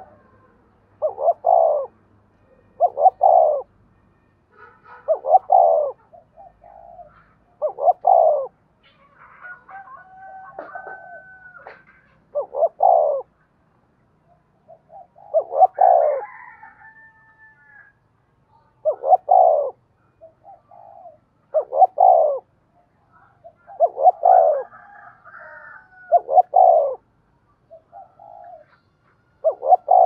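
Spotted dove cooing: loud short low coos repeated every two to three seconds, with softer short notes in between. A thin higher whistled call from another bird comes in faintly a few times.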